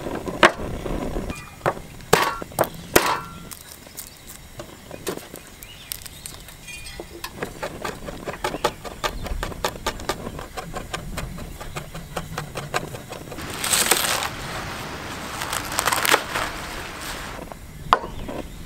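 A kitchen knife clicking against a wooden cutting board in quick, regular strokes as food is sliced, after a few knocks as the board is set down on a wooden table. Near the end come two short bursts of noise and a single knock as a ceramic bowl is set on the table.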